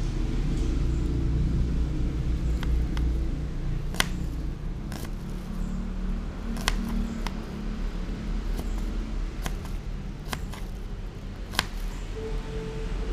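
Small kitchen knife tapping down on a plastic cutting board while chopping shallots: a handful of sharp clicks at irregular intervals, the loudest about four seconds in, over a steady low rumble.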